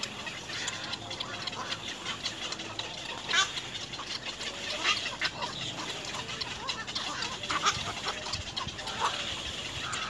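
Black-crowned night heron chicks calling in the nest: a string of short, separate calls.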